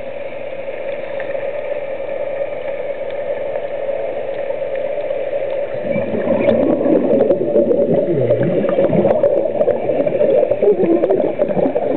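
Underwater sound picked up by a diver's camera: a steady hum and hiss, then from about halfway through a louder, irregular gurgling of scuba exhaust bubbles.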